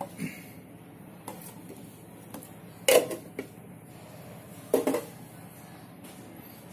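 A few light knocks and clatters from the black plastic grounds cup of a coffee grinder being handled and set down, with two louder knocks about three and five seconds in; the grinder motor is not running.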